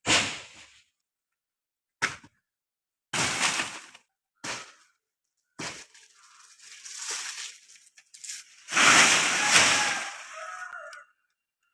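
A series of sudden crashes with rustling, about six of them, as cut coconut palm fronds fall and hit the ground. The loudest and longest comes about two-thirds of the way through and trails off in rustling.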